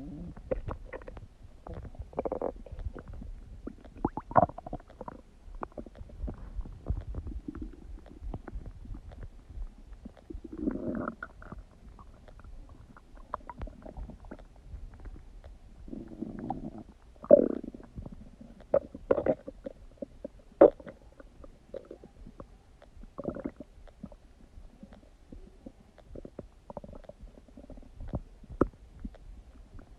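Human stomach and intestines gurgling and rumbling during digestion, as irregular bubbling swells with sharp little pops, the loudest at about 17 and 20 seconds in.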